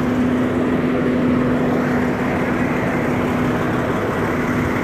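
A steady mechanical drone from a running motor: one constant low tone over an even rumble, unchanging throughout.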